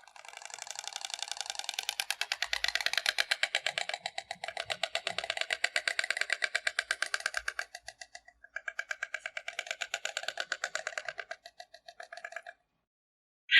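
Stork clattering its bill: a rapid, even rattle of clicks in two long bouts with a short break about eight seconds in, then one sharp click near the end.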